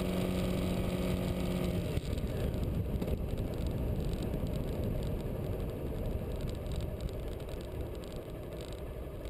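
Motorcycle riding along a road: a steady engine tone that drops out about two seconds in, leaving wind and road rumble on the bike-mounted camera microphone that slowly fades as the motorcycle slows.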